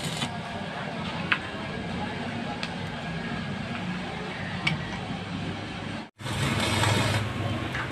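Arc welding machine running on test: a steady hum with hiss and a few sharp clicks. The sound cuts out for a moment about six seconds in, then comes back louder.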